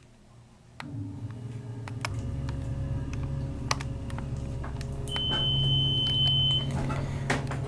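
Dover elevator's motor starting up and the car running with a steady low hum, with a few light clicks. A single long, steady high-pitched beep sounds about five seconds in, lasting about a second and a half.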